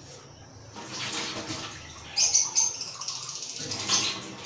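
Water being poured and splashing for a few seconds, with two short high chirps over it.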